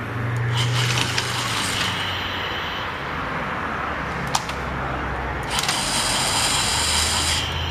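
Battery-powered Trackmaster Thomas toy train running along plastic track: its small electric motor and gears whir steadily, running quietly and smoothly. There is a sharp click about four seconds in, and the whir grows louder and sharper from about five and a half seconds in.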